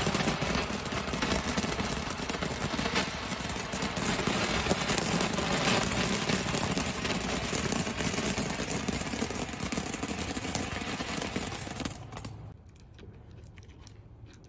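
A handheld firework spraying a fountain of sparks: a steady rushing hiss full of crackles. It dies away about twelve seconds in.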